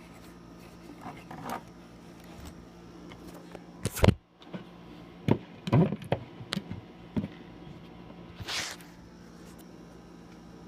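Scattered clicks, knocks and scrapes of hands working on the parts of a player piano's wind motor, the loudest knock about four seconds in, a cluster more between five and seven seconds, and a short scrape near the end.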